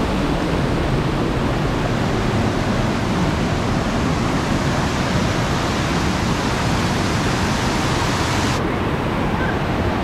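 Fast-flowing river cascade: a steady, loud rush of white water over rocks. The highest hiss drops away abruptly near the end.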